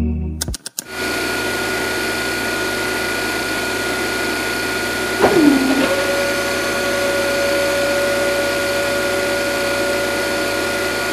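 Small brushed DC hobby motors of a toy drilling rig whirring steadily. About halfway through, a pitch sweeps down sharply and a new steady tone holds on to the end.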